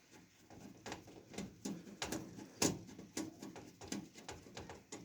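Irregular light clicks and knocks of computer parts and case hardware being handled and fitted, about two or three a second, the loudest about halfway through.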